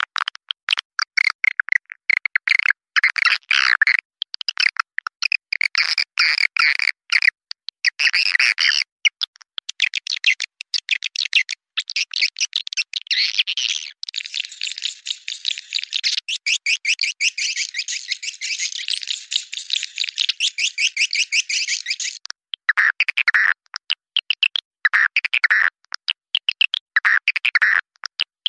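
Swiftlet lure call: rapid chattering chirps and twitters of edible-nest swiftlets, the recording farmers play to draw swiftlets into a bird house. About halfway through the chirps run together into a continuous trill for several seconds, then break off suddenly into separate chirps again.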